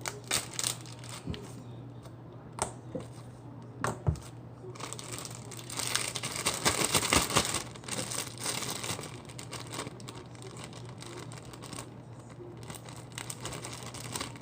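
Plastic baggie crinkling and rustling as slime is pushed into it, with a few sharp clicks in the first few seconds and the busiest, loudest crinkling around the middle.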